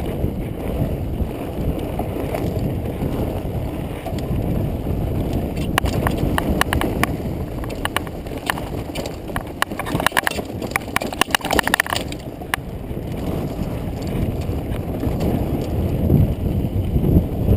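Mountain bike riding fast down dirt singletrack, heard from a camera on the bike: a steady low rumble of wind and tyre noise, with a stretch of sharp, irregular rattling clicks from the bike from about six to twelve seconds in.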